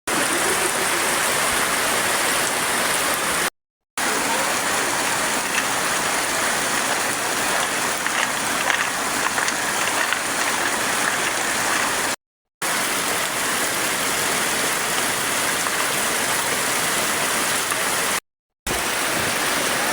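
Steady rush of heavy rain and running water, cutting out completely for a split second three times.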